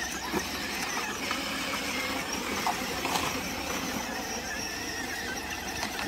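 Child's battery-powered ride-on toy jeep driving over a dirt path, its electric motors and plastic gearbox whining steadily.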